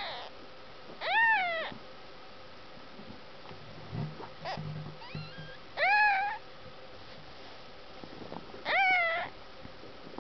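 Newborn kittens mewing: high cries of about half a second each that rise and fall in pitch. There are four loud ones a few seconds apart, with fainter short squeaks between.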